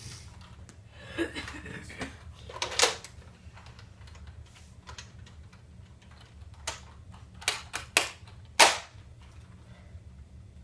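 Nerf blaster shots: a handful of sharp snaps, one about three seconds in and a quick run of four later on.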